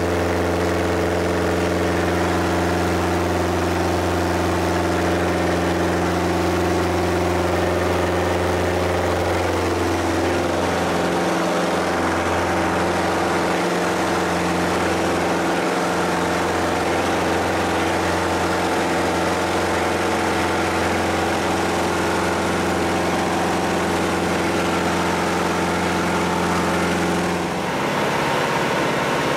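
Piston engine and propeller of a Glasair light aircraft running at high power, heard from inside the cockpit during takeoff and climb-out. The steady engine note shifts slightly about a third of the way in and changes abruptly near the end.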